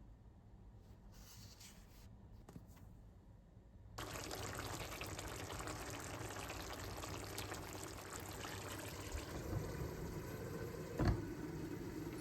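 Water pouring in a steady stream, starting abruptly about four seconds in, with a single knock near the end.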